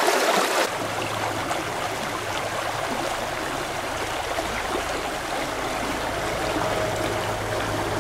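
Shallow stream rushing over rocks: steady running water, a little louder and brighter for the first moment before settling lower.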